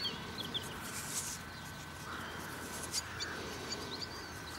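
Faint outdoor ambience with small birds chirping now and then.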